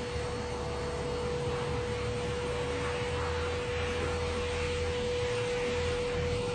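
A steady machine drone with a constant mid-pitched hum and a low rumble underneath, unchanging throughout.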